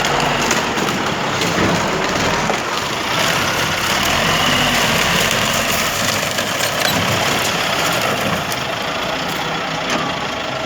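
Diesel engine of a loader (shovel) running while it works through construction rubble, with scraping and knocking of debris throughout.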